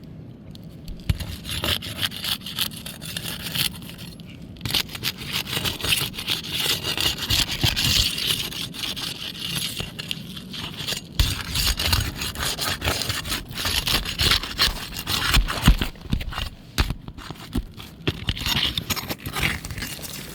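Flat pry bar scraping against roof shingles, worked back and forth under the tabs to release their seal, in rapid, repeated rasping strokes.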